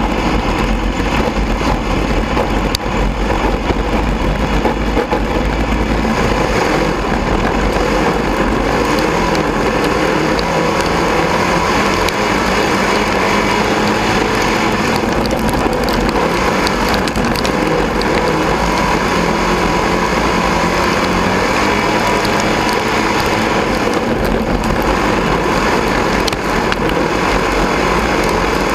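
Sport Mod race car's engine running at a steady, moderate speed, heard from inside the cockpit, with the car's body and chassis rattling over the dirt track.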